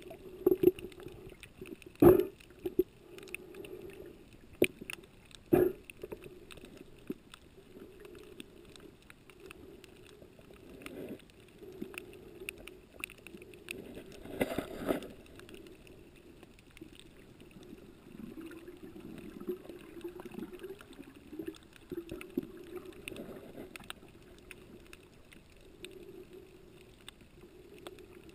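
Muffled underwater water noise picked up through a camera's waterproof housing: a steady low rumble of moving water, with a few sharp knocks in the first six seconds and a louder swell of noise about halfway through.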